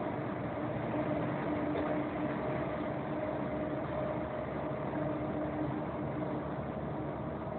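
A vehicle driving at steady speed, heard from inside the cab: a constant engine hum over tyre and road noise.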